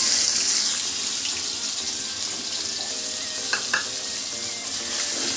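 Chopped onion sizzling in hot oil with cumin seeds in a kadai, just tipped in. The sizzle is loudest at first and eases a little, with two light clicks about three and a half seconds in.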